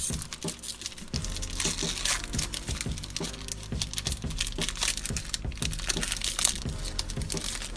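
Crinkly plastic Magic: The Gathering booster pack wrapper being torn open and handled, with irregular crackling throughout, over quiet background music.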